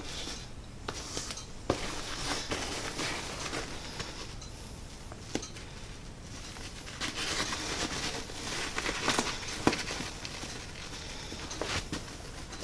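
Duct tape being torn into small pieces and handled on a fabric backpack: scattered rips, crinkles and small clicks, with rustling of the pack.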